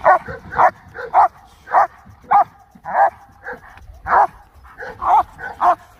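German Shepherd barking hard and repeatedly, about two barks a second, while held back by its collar. This is a protection dog showing active aggression on the watch command.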